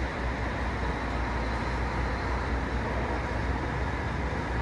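Busscar intercity coach's diesel engine running with a steady low rumble, under the even hiss of the bus terminal.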